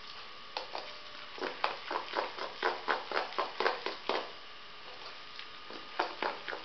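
A metal spoon beating thick semolina (suji) batter in a stainless steel bowl, quickly, just after the Eno has gone in: a run of clinks and scrapes against the bowl, two or three a second. They pause for nearly two seconds partway through, then start again near the end.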